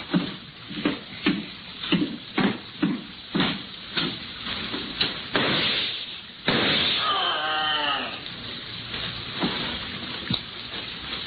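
Radio-drama sound effects of a violent struggle: a run of heavy thuds and knocks about twice a second, then a crash and, about six and a half seconds in, a sudden loud, long anguished cry, followed by a few fainter knocks.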